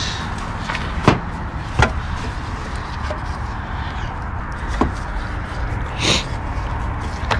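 A few sharp plastic clicks and taps as gloved hands work a bulb socket and wiring harness behind a car's headlight housing, with a short rustle about six seconds in, over a steady background hiss.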